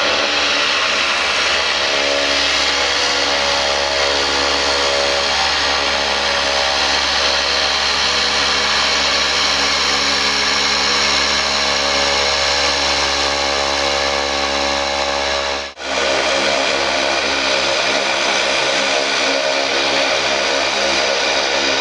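The twin Garrett TPE331 turboprop engines of a Fairchild Swearingen Metro II running at steady low taxi power: a loud, even turbine whine over the propellers' drone. The sound briefly cuts out about three-quarters of the way through, then resumes unchanged.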